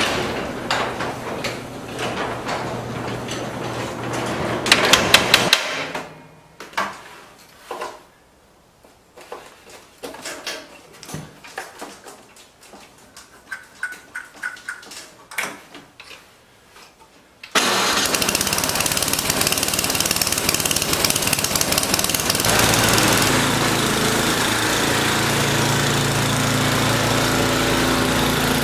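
Scattered small clicks and knocks as a walk-behind snowblower is readied, then its engine starts abruptly about two thirds of the way in and runs steadily, its note changing a few seconds later.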